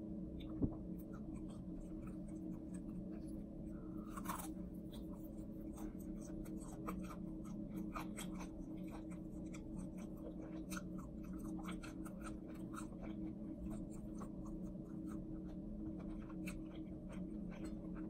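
Close-miked chewing of crispy fried chicken: many small crunches and crackles of the breading over a steady low hum. A single sharp click about half a second in.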